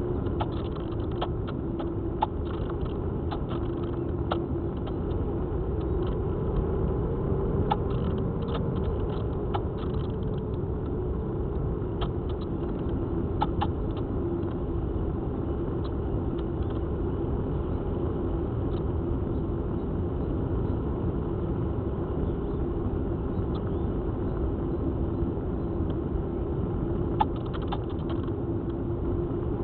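Steady drone and rushing air of a Spyhawk radio-controlled FPV plane in flight, heard through its onboard camera's microphone, with a held droning tone and a few faint ticks.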